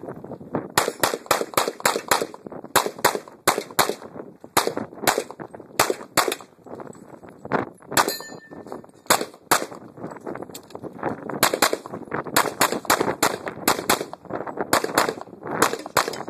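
Pistol fired in quick runs of shots, mostly in pairs, with short pauses between runs. About eight seconds in, one shot is followed by a steel target ringing.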